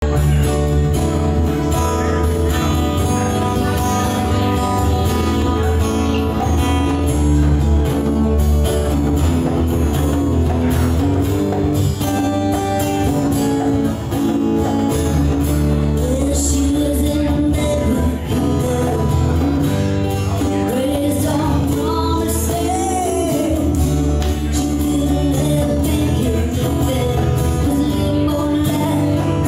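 Live acoustic band playing a country-style song: two acoustic guitars strummed over electric bass, with hand-played congas. A voice comes in singing about halfway through.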